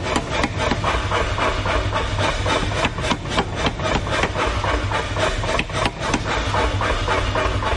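Power hammer striking a glowing bar of thick car leaf-spring steel in a fast, uneven run of blows, over a steady low hum.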